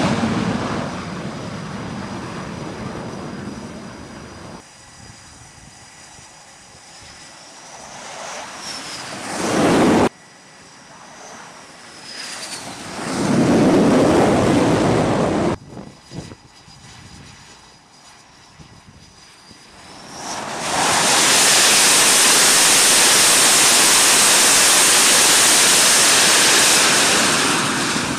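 F/A-18 fighter jet engines on a carrier flight deck, heard in several edited shots: the noise swells as a jet approaches and cuts off abruptly at each cut, with a high turbine whine. About twenty seconds in, a long stretch of loud, steady jet engine noise begins as a jet runs close by.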